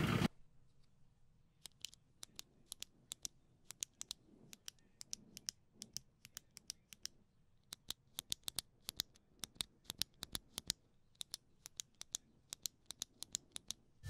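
Retractable pen clicked over and over close to the microphone: short, sharp clicks, often in quick pairs as the button is pressed and released, starting about a second and a half in and going on at an irregular pace.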